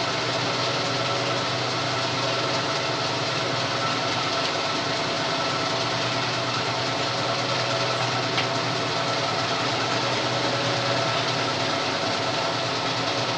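Old metal lathe running steadily, a constant machine hum with several steady tones from its motor and gear train.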